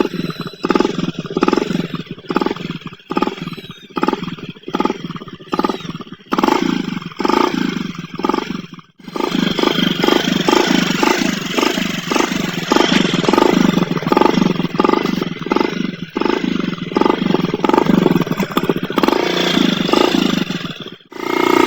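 Motorcycle exhaust running through a water jug fitted over the silencer. The throttle is blipped in a steady rhythm of about one and a half revs a second, then held on for a long, continuous run about nine seconds in. The water-jug silencer gives a deep, throbbing note, which the uploader likens to a Royal Enfield Bullet.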